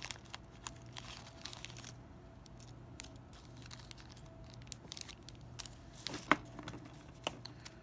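Light rustling and small clicks of hands handling a brass earring hook and jewellery findings on a beading tray, with one sharper click a little after six seconds.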